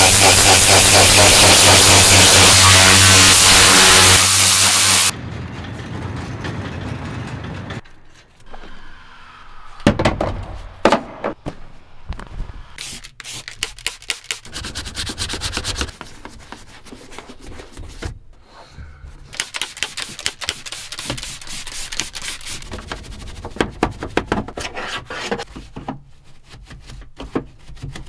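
Compressed-air blow gun hissing loudly and steadily for about five seconds, then cutting off suddenly. After that, a stiff boar's-hair detailing brush scrubs and rubs over the cab's plastic and rubber surfaces, broken by a few short, louder bursts of hiss.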